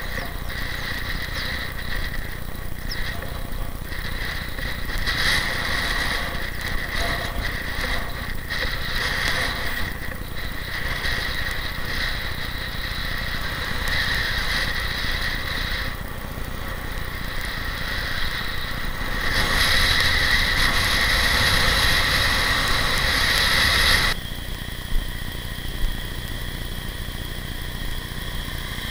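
Wind rushing over the microphone of a camera on a moving bicycle, with road noise from the tyres on asphalt. It grows louder for a few seconds and then cuts off abruptly, leaving a quieter, steadier rush with a couple of short knocks.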